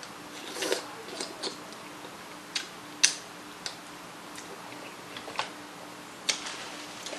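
Close-up mouth sounds of someone eating sauce-coated seafood boil food by hand: wet chewing with sharp lip smacks and clicks, about eight at irregular intervals.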